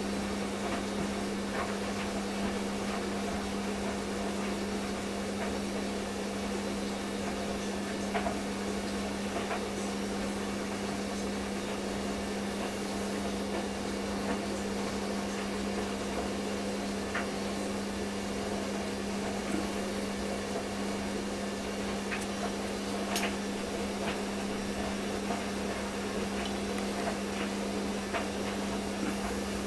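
A steady electrical or mechanical hum with a constant hiss, and a few faint ticks now and then.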